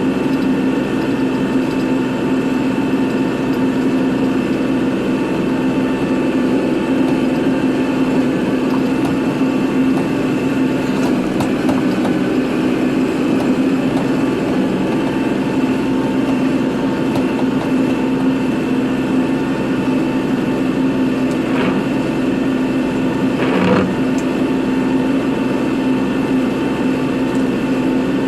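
Kubota tractor's diesel engine running steadily at constant speed, with a couple of brief clunks about three-quarters of the way through.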